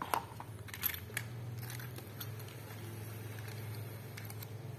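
Light clicks and taps of small hard items being handled during an unboxing, a few sharp ones in the first second and a half, then scattered faint ticks over a steady low hum.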